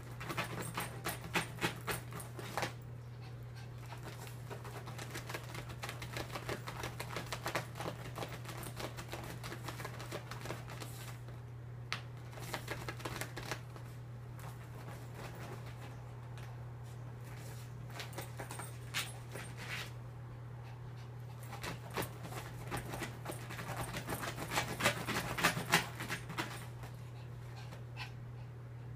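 Chihuahua scratching and pawing at the fabric, mesh and rubber-banded zippers of a closed pet stroller, trying to get out: bursts of rapid scratchy clicks with short pauses between them, over a steady low hum.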